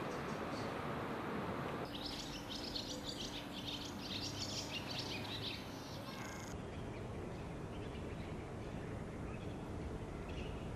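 Small birds chirping busily in quick, high twitters for about four seconds, over steady outdoor background noise. A few fainter chirps come near the end.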